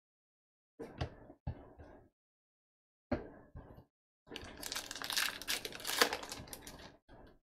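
A few short rustles of handled cards, then a 2019 Topps Allen & Ginter pack wrapper crinkling and tearing open for about three seconds, starting about four seconds in.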